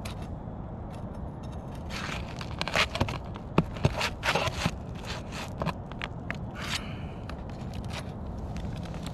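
Flat bar scraping and prying under brittle roof shingles: a run of short scrapes and cracks through the middle, the sharpest crack about three and a half seconds in.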